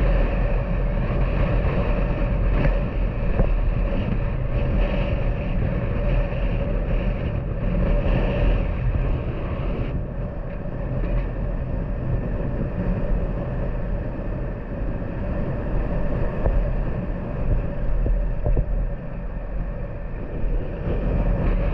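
Honda Super Cub's small single-cylinder four-stroke engine running steadily while riding, with wind rushing over the microphone. The engine eases off a little about ten seconds in.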